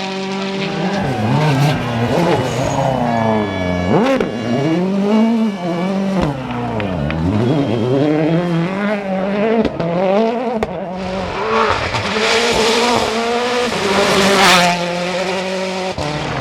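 Rally car engine revving hard, its pitch rising and falling again and again as it lifts, brakes and accelerates through corners, with a sharp crack about four seconds in. Near the end a hiss of tyres sliding on the loose surface rises under the engine.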